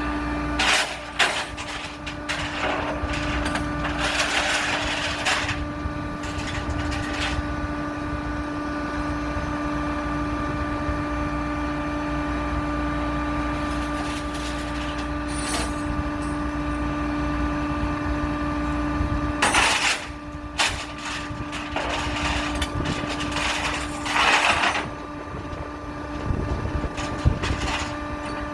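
A steady mechanical hum at an unchanging pitch, with several short clattering noises over it, the loudest about a second in and around twenty seconds in, where the hum briefly drops out.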